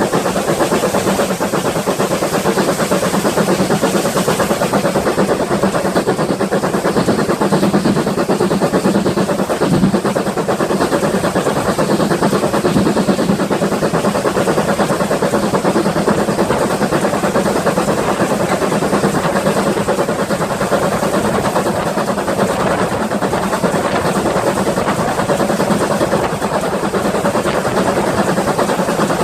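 GWR 5600 class 0-6-2T steam tank locomotive 5619 running under steam, a loud continuous sound that stays steady throughout.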